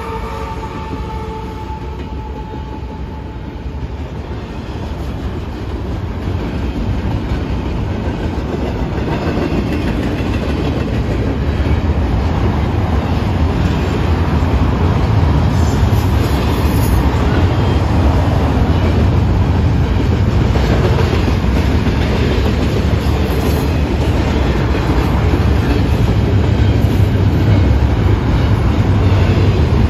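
A CSX double-stack container freight train's well cars rolling past over the grade crossing: wheel-on-rail noise that grows louder over the first dozen seconds and then holds steady. The last of the locomotive's horn fades out about a second in.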